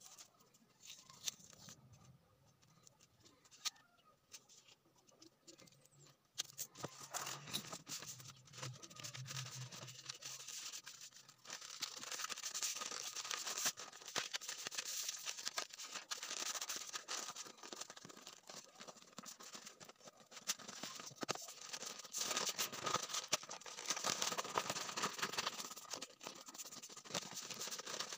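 Stiff craft paper being handled by hand: rustling and crinkling with many small clicks. It starts about six seconds in and is loudest in the second half.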